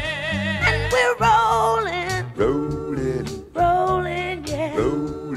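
Background music: a song with sung vocals held with vibrato over a band with a stepping bass line.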